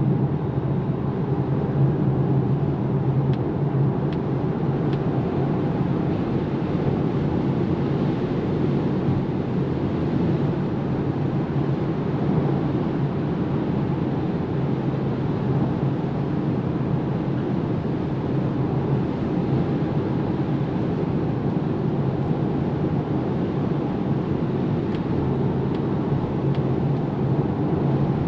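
Steady road and wind noise inside the cabin of a Polestar 2 Long Range Dual Motor electric car cruising at motorway speed, with a low steady hum underneath.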